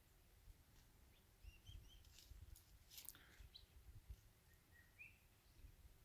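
Near silence: faint outdoor background with a few small, distant bird chirps and a couple of faint clicks near the middle.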